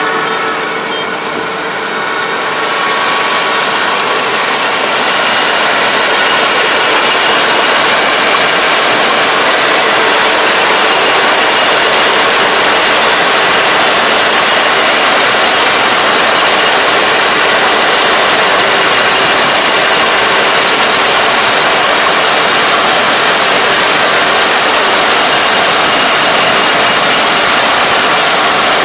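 Kubota DR575 five-row combine harvester cutting and threshing rice, its diesel engine and machinery running as a loud, steady noise. The noise swells over the first few seconds as the combine comes closer, then holds steady.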